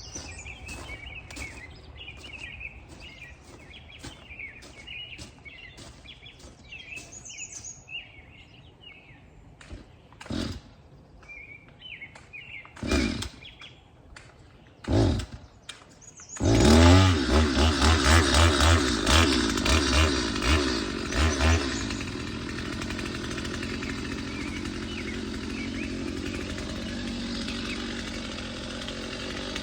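Stihl MS 250 C two-stroke chainsaw starting after a few pulls on the cord, catching about halfway through. It is revved in short bursts for about five seconds, then runs steadily. Birds chirp faintly before it starts.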